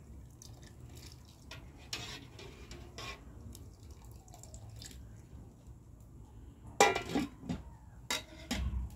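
Metal ladle stirring and scooping soup in a steel cooking pot, with light clinks against the pot and liquid dripping back in. Near the end come two louder clusters of metal clanks as the lid is set on the pot.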